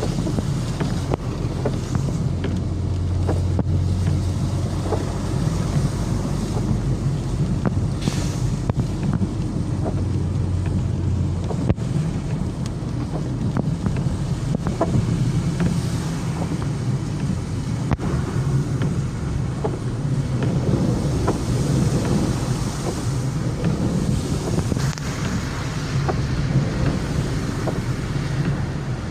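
Steady low rumble of a vehicle travelling along a road, with wind buffeting the microphone and scattered faint ticks.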